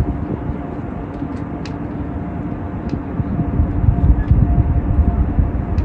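Large cruise ship passing, a loud low rumble with a faint steady hum over it.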